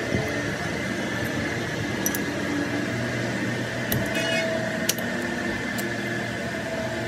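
A workshop machine running steadily with a faint whine, and a few sharp metallic clicks from about two seconds in.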